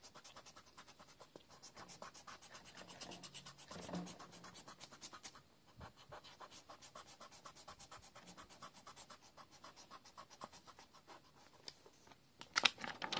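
Pencil-top rubber eraser rubbing quickly back and forth on paper, erasing a pencil sketch. The strokes are quiet and rapid, pausing briefly about halfway, with a louder scrape and rustle of the paper near the end.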